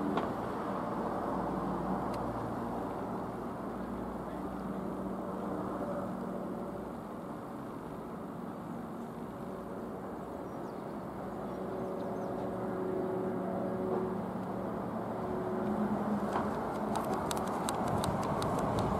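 Light aircraft engine and propeller giving a steady drone, its pitch wandering slightly as the plane flies past. A run of faint clicks comes near the end.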